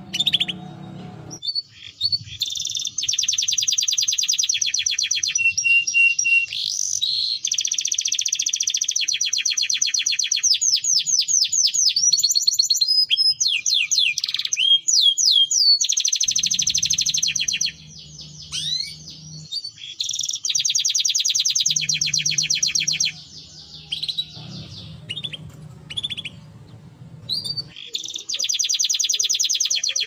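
Domestic canary singing: long, very fast trills one after another, broken by short pauses and by a few whistled notes that slide up and down.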